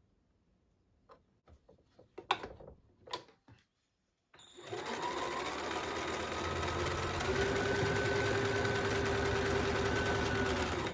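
Electric sewing machine starting about four seconds in and running steadily as it stitches quilt squares together, picking up a little speed shortly after it starts, then cutting off suddenly. Before it, a few light clicks of fabric being handled.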